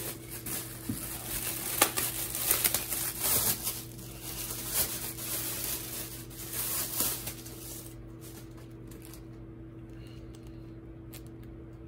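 Clear plastic bag crinkling and rustling as it is handled, in irregular crackles for about eight seconds, then stopping.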